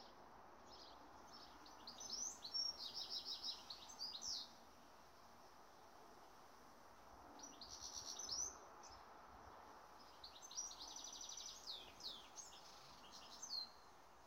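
A songbird singing three phrases of quick, high repeated notes, each a second or two long, over a faint steady background hiss.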